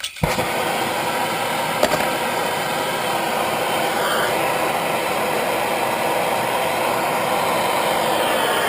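MAP gas torch flame catching right at the start, then burning with a steady rushing noise as it heats a carbon-fouled spark plug's anode to burn the carbon off. A single click about two seconds in.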